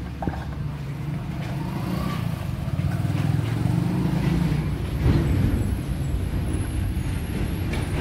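Steady low mechanical rumble, swelling slightly about halfway through, with a few light knocks as plywood pieces of a nest box are handled and fitted together.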